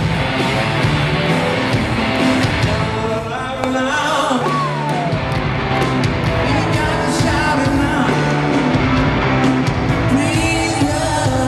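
A rock band playing live in an arena, loud and steady, with a singer whose voice slides in pitch over the band.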